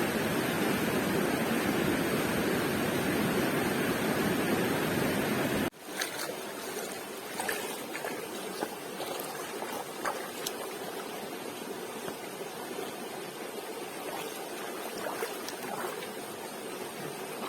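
Steady rushing of flowing water for about six seconds, then a sudden cut to quieter water noise with scattered light taps and clicks.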